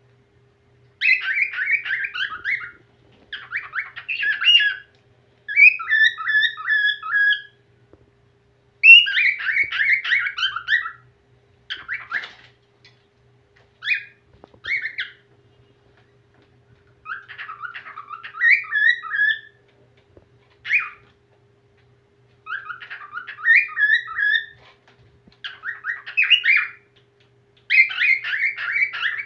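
Whiteface cockatiel singing: about a dozen short phrases of quick chattering warble mixed with whistled notes, broken by brief pauses.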